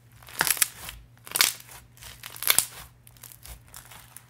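Sticky slime being stretched and pressed by hand, crackling and popping in three loud bursts about a second apart, then quieter crackles.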